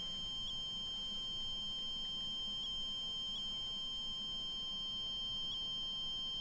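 Proximity-sensor alarm built into a plush toy dog sounding one steady, high-pitched electronic tone: the sensor has been set off because its weak field of energy has been broken.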